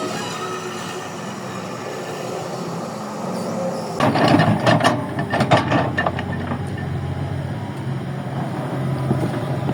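Kobelco excavator's diesel engine running steadily. About four seconds in comes a couple of seconds of loud clattering and scraping as the machine works the soil, then the engine runs on with a steady low tone.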